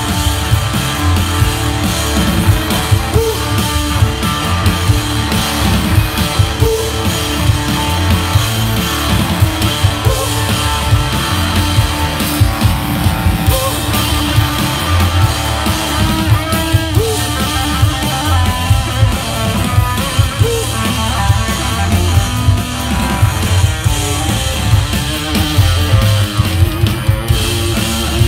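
Live rock band playing: drum kit keeping a busy beat under a steady bass line and electric guitar.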